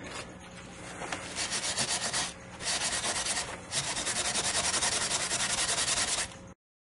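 Coarse metal sponge scrubbing a darkened, acid-soaked zinc plate to take off its dark surface layer. The quick, even back-and-forth strokes start about a second in, pause briefly twice, and cut off suddenly near the end.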